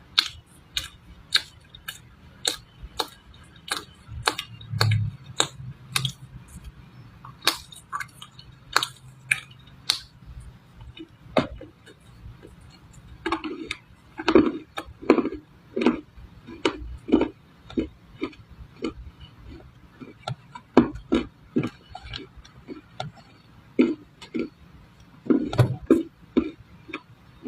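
Dry clay crunching and crackling in sharp, irregular snaps, about one or two a second, some with a duller, heavier crunch.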